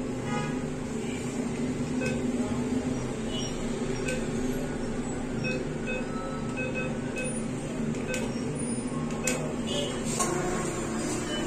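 NCR cash machine beeping as its keypad and screen-side buttons are pressed through PIN entry and a cash withdrawal: short high beeps at irregular intervals and a few sharp button clicks, over a steady low hum.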